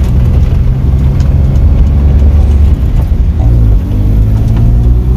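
A Maruti 800's three-cylinder petrol engine running as the car is driven: a steady low rumble, with a brief change in pitch about three and a half seconds in.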